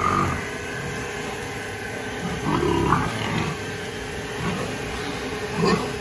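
Pigs grunting and squealing, in three louder bursts at the start, midway and near the end, over a steady mechanical hum.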